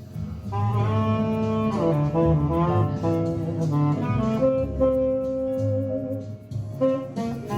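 Saxophone playing a melody, holding one long note about halfway through.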